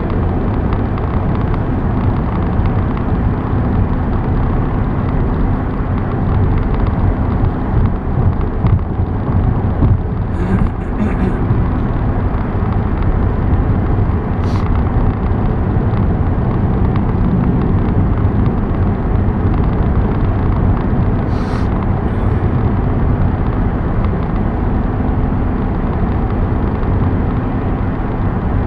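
Steady road and engine noise of a car driving, an even rumble with a constant low drone. A few brief sharp ticks cut in about ten, fourteen and twenty-one seconds in.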